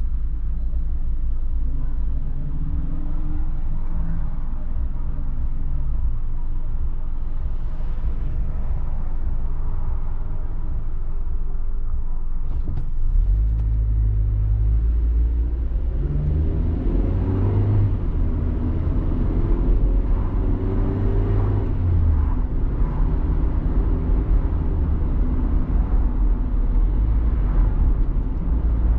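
Car engine and road noise heard from inside the cabin: a low steady rumble while stopped, then, about halfway through, the car pulls away and speeds up, its engine pitch rising several times.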